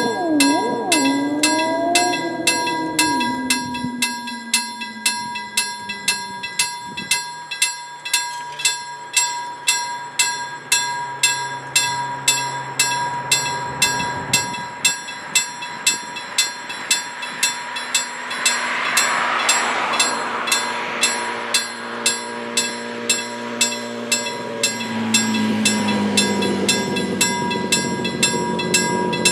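Level-crossing warning bell dinging at an even pace, about one and a half strikes a second. Near the end, the engine of an approaching rail vehicle grows louder underneath it.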